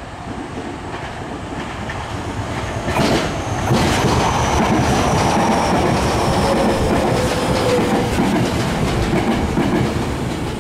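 Tokyo Metro 10000 series electric train pulling into the station and slowing, its wheels clattering over rail joints. The noise swells as the cars reach the microphone about three seconds in, with a faint whine that falls in pitch as it brakes.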